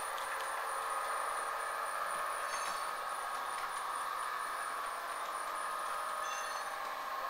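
HO-scale model F59PH diesel locomotive running at track speed, its Soundtraxx Tsunami sound decoder playing a steady diesel engine sound through the model's small speaker, with a thin high whine throughout and a brief high chirp every few seconds.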